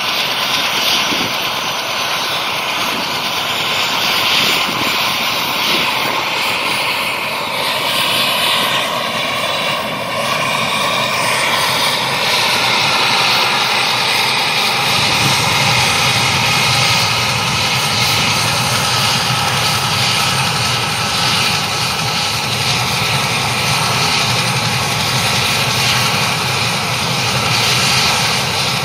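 Mil Mi-17 helicopter's twin turboshaft engines spooling up during start: a high turbine whine whose tones rise in pitch over the first ten seconds or so. About halfway, a stronger low rumble joins as the main rotor turns faster, and the sound settles into a steady loud run.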